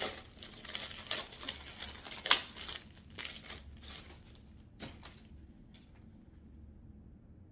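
Plastic clothing packaging crinkling and rustling as it is opened by hand, with one sharp, loud crackle a little past two seconds in. The crackling thins out and stops about six seconds in.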